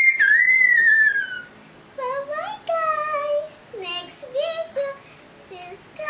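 A young girl's high-pitched squeal, sliding down in pitch over about a second and a half, then her voice in short sing-song phrases.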